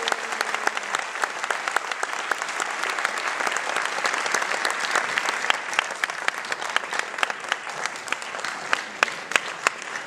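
Audience applauding: a dense, steady patter of many hands clapping, with a few louder single claps standing out near the end.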